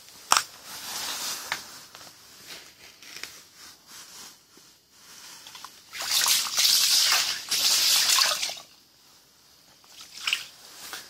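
A large burbot flopping on wet ice, its body slapping and splashing in the meltwater. There is a sharp slap just after the start and a loud splashing stretch of about two seconds past the middle.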